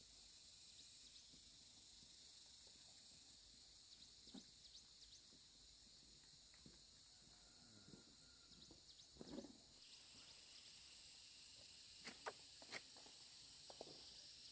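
Faint, steady chirring of insects. A few soft rustles and knocks come midway, and a few sharp clicks near the end.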